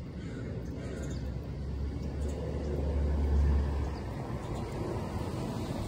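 A truck passing by: a low rumble that builds, is loudest about three seconds in, then dies back.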